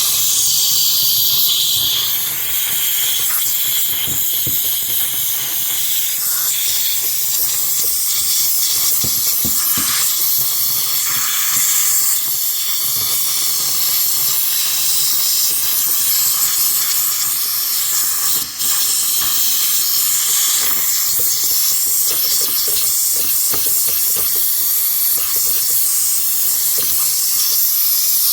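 Handheld steamer hissing steadily, melting the ice buildup in a refrigerator's frozen ice compartment. The hiss breaks off briefly about eighteen seconds in.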